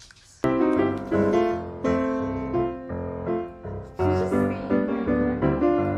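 Piano music that starts abruptly about half a second in and plays on as a run of notes.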